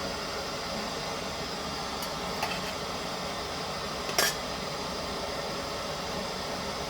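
Steady hiss with a few light clinks of a utensil against a cooking pot, the sharpest and loudest about four seconds in.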